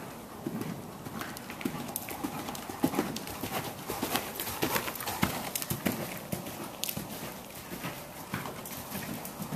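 Hoofbeats of a Westphalian mare cantering on soft dirt arena footing, loudest in the middle as she passes close by.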